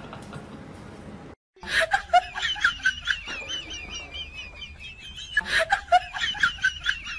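A high, snickering, laugh-like chatter over a high wavering whistle-like tone, starting about a second and a half in after a brief dead gap. The same pattern starts over about every four seconds.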